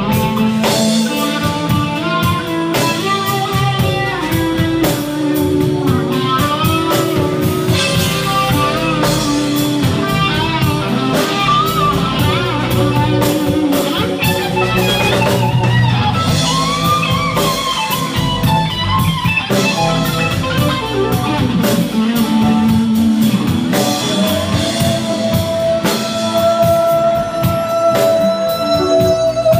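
Live rock band playing an instrumental stretch: electric guitar lead with bent notes over electric bass and drum kit. Near the end a woman's voice comes in holding one long note that breaks into vibrato.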